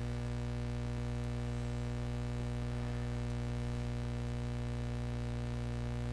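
Steady electrical mains hum with a buzzy series of overtones, unchanging throughout.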